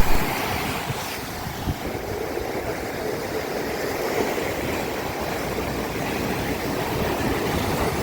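Ocean surf washing onto a sandy beach as a steady rushing noise, with some wind on the microphone.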